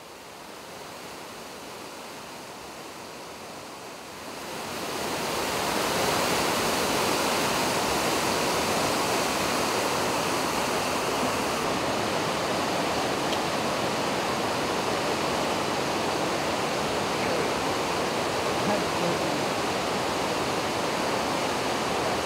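River water rushing over and around boulders in rapids: a steady, even roar that grows louder about four seconds in and then holds.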